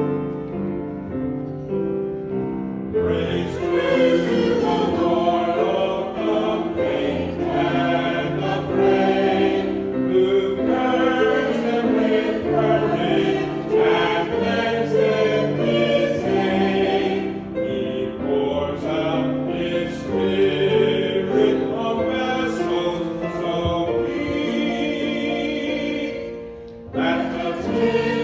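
Church choir singing with sustained chords. The sound grows fuller about three seconds in and breaks off briefly near the end before resuming.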